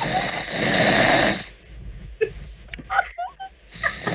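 A man snoring over a Skype call. One long snore lasts about a second and a half, there is a quieter pause, and the next snore begins near the end.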